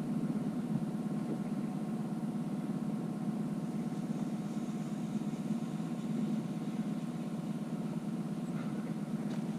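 Boat's outboard motor running steadily at trolling speed, a constant even hum.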